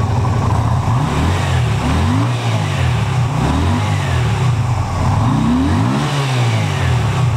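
2008 Yamaha V Star 250's air-cooled V-twin engine running and being revved several times, the pitch rising and falling back toward idle between blips. The engine revs up freely and cleanly.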